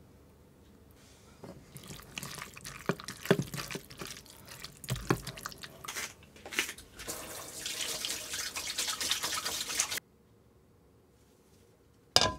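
Thin-sliced raw pork being worked into a sauce marinade in a stainless steel bowl: irregular wet, squishy sounds with sharp splashy peaks that stop suddenly about ten seconds in. A brief sharp noise follows near the end.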